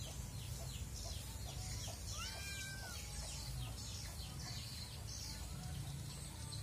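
Swiftlets twittering: many short, high, downward-sweeping chirps repeating throughout, with one longer, lower arched call about two seconds in, over a steady low rumble.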